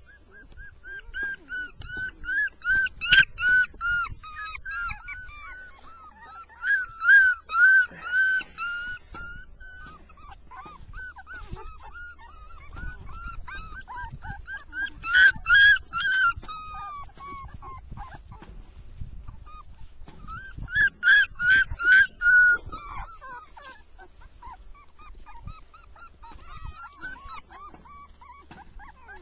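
Shiba Inu puppies yipping and whining in high-pitched, rapid strings of short cries during play. There are four louder bouts of quick yips a few seconds apart, with softer whimpers between them.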